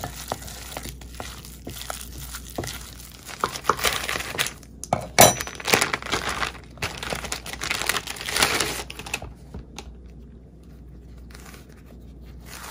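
Plastic packaging of a stack of frozen spring roll wrappers crinkling and rustling as it is handled and torn open, in a busy run of crackles that peaks about five seconds in and dies down after about nine seconds. In the first seconds a spoon scrapes and clicks against a bowl while mixing a ground pork filling.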